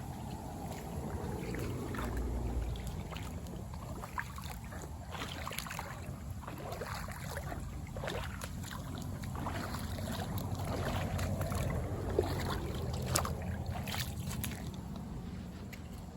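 Shallow water sloshing and splashing, with a low wind rumble on the microphone and scattered sharp clicks.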